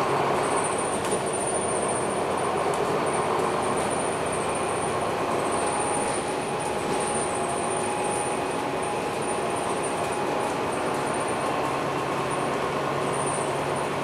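Cabin sound of a MAN NL323F A22 Gemilang single-deck bus under way at low speed: a steady engine and drivetrain drone with road noise, and a faint high-pitched whine that comes and goes.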